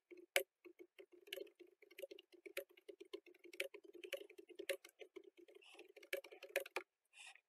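Faint typing on a computer keyboard: a quick, steady run of keystrokes that stops shortly before the end.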